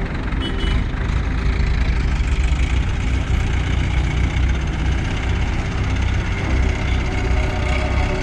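A heavy engine running steadily at idle, with a deep rumble.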